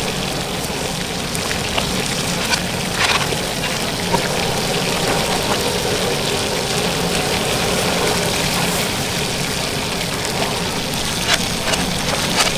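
Noodles sizzling and hissing in a steel wok over a gas burner, with a steady low burner hum underneath. A few sharp clinks of metal tongs against the wok, around three seconds in and again near the end.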